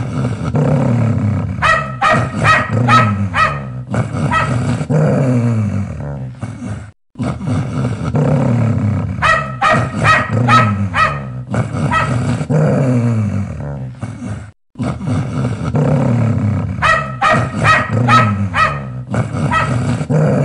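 Fierce dog growling, with deep sliding growls and a quick run of sharp barks. The same stretch of a few seconds plays three times over, with a brief break between each.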